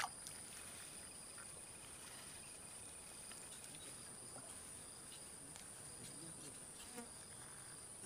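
Insects droning steadily in a faint, high-pitched, unbroken chorus. A short click at the very start.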